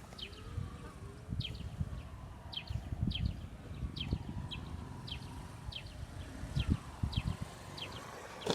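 Outdoor ambience: a short high chirp from a small animal, repeated about twice a second, over uneven low rumble.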